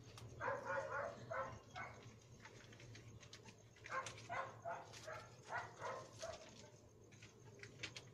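A dog barking in two bouts of several quick barks, the first about half a second in and the second about four seconds in, over a steady low hum.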